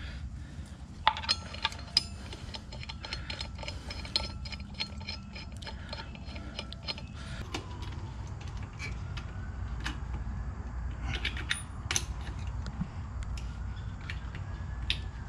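Rapid metallic clicking of a ratchet wrench as the wheels' lug nuts are run down, dense for the first several seconds and then a few separate sharp clicks near the end, over a steady low rumble.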